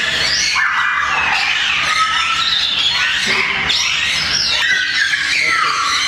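Many caged parrots and parakeets calling at once: a dense chorus of overlapping squawks and screeches that rise and fall in pitch.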